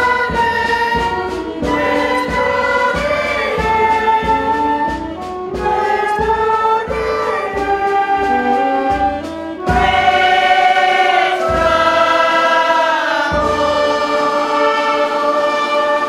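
Music: a choir singing sustained, slowly moving lines over a regular low beat, which thins out about two-thirds of the way through.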